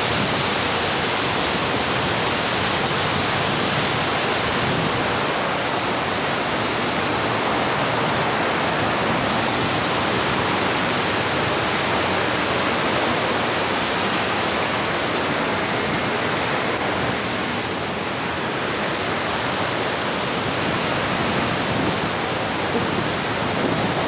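Steady, even rushing noise spread across all pitches, without pauses or clear events.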